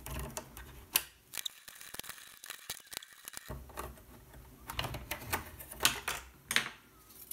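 Irregular light clicks and taps of small steel screws and a precision screwdriver against the plastic chassis of a robot vacuum as its front screws are taken out and set down, with a quiet stretch in the middle.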